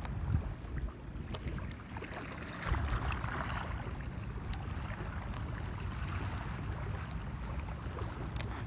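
Wind buffeting the microphone over small ripples lapping and ticking against the hull of a stand-up paddleboard floating on calm water. The lapping swells briefly about three seconds in.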